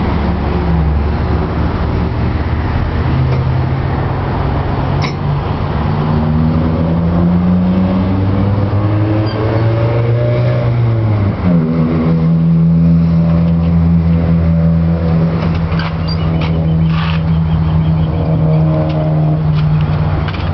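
Backhoe's diesel engine running, its revs climbing slowly for several seconds, then dropping back sharply about halfway through and running steadily after. A few light clicks can be heard over it.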